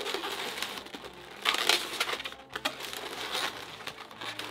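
Inflated latex 260 twisting balloons rubbing against each other and the hands as they are twisted and pressed into a pinch twist, in irregular strokes, loudest about a second and a half in.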